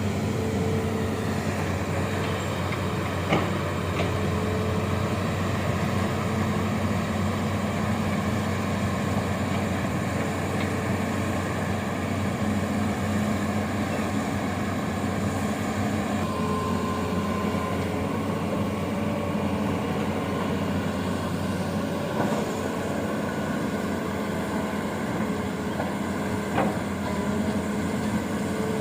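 Amphibious excavator's diesel engine running steadily, with a few sharp knocks, the first about three seconds in.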